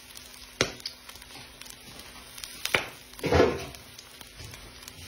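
A few isolated sharp clicks, with one duller thump about three seconds in.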